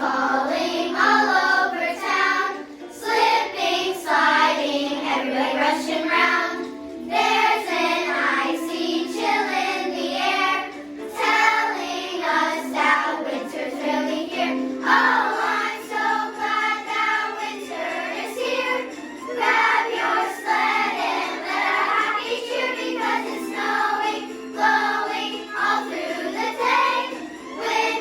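A children's choir singing a holiday song with accompaniment, with a steady sustained low note underneath.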